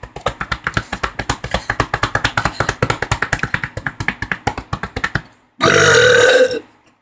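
A long burp chopped into rapid pulses, about ten a second for some five seconds, followed near the end by one loud burp of about a second. Together they make up a made-up "King Kong burp".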